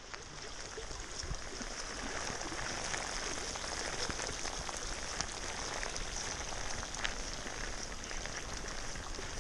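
Steady rain falling: a continuous hiss scattered with many small ticks of drops.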